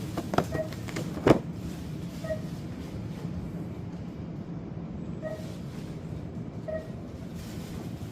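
A few sharp pops from small F1 fireworks in the first second or so, the last and loudest about a second in, over a steady low rumble. Short cooing calls follow every second or two.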